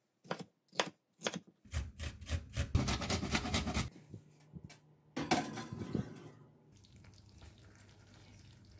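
Knife cutting a red bell pepper on a wooden cutting board: three separate cuts, then a quicker run of cuts for about two seconds. A brief clatter follows a little after five seconds, then only a faint hum.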